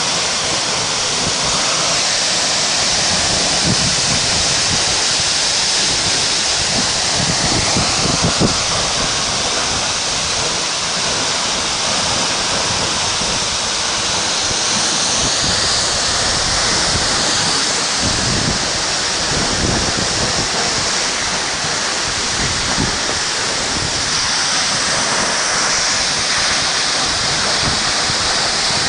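Waterfall: a steady, loud rush of falling and splashing water.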